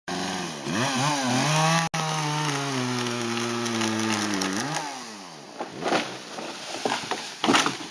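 Two-stroke chainsaw running at high revs as it cuts through a standing tree trunk, dropping off about five seconds in. Several sharp cracks and thumps follow as the tree falls.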